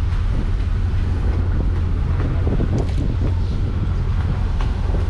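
A fishing trawler's engine running with a steady low drone. About two seconds in, short clicks and rustles from hands sorting the catch on the deck are heard over it.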